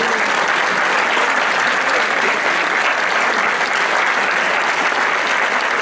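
A crowd applauding with dense, steady clapping, greeting an award announcement.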